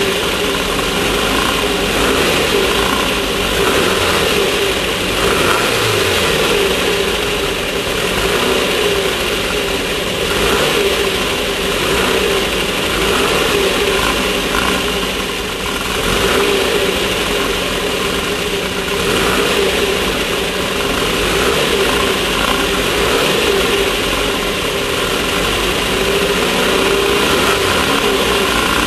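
Class 1600 off-road race car's air-cooled Volkswagen 1600 cc engine running hard at racing speed. It makes a continuous loud drone mixed with a dense wash of noise, dipping slightly for a moment about halfway through.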